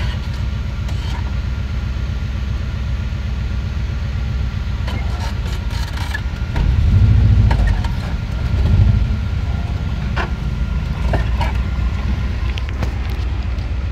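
Volkswagen Kombi van's engine running, heard from inside the cab: a steady low rumble that swells twice, about six and a half and eight and a half seconds in, as the van is driven forward.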